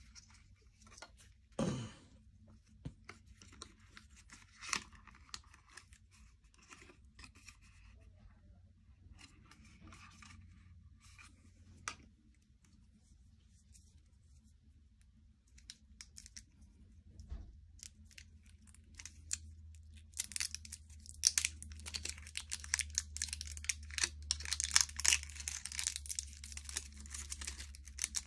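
Packaging handled by hand: a dull knock near the start, then scattered light clicks and rustles. From about two-thirds of the way through, a thin white wrapper is torn open and crinkled, the loudest part.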